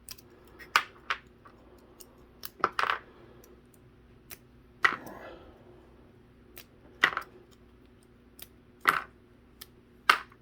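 Small hard-tipped foam toy darts being wiggled off a plastic carrier and dropping onto a hard surface: a string of sharp, irregular clicks and light clacks, about one every second or two.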